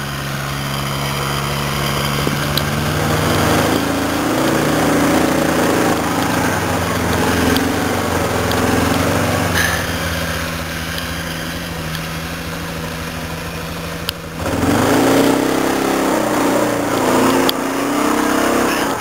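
Club Car XRT1550 side-by-side's engine pulling under load up a grassy hill, its pitch rising and falling with the throttle. It runs louder again from about fourteen and a half seconds in.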